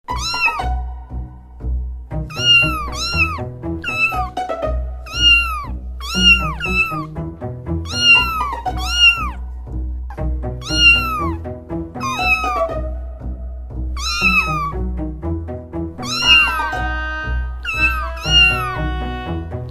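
Kitten meowing repeatedly, high short meows that rise and fall in pitch, roughly one or two a second with a short gap near the middle, over background music.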